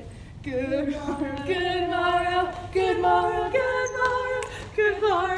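Young women's voices singing a cappella together in harmony: a few long held notes that climb step by step in pitch.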